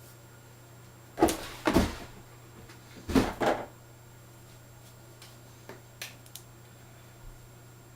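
Handling noises: two pairs of short scraping knocks, about one second and three seconds in, then a few faint clicks, over a steady low hum.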